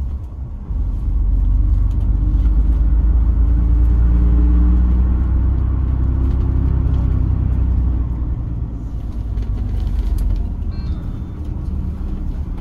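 Shuttle bus engine and road noise heard from inside the cabin: a low rumble that steps up about a second in as the bus pulls away and gathers speed, then eases off after about eight seconds.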